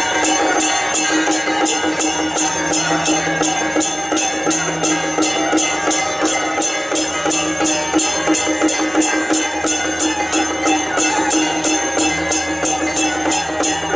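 Traditional temple procession music with an even, fast percussion beat of about three strikes a second over sustained tones.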